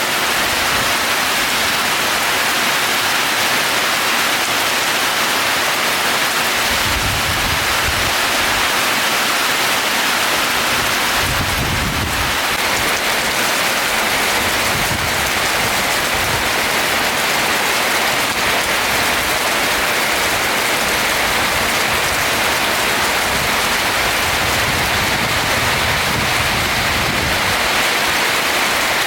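Steady rain falling on a roof, an even hiss of countless drops, with a few soft low rumbles now and then.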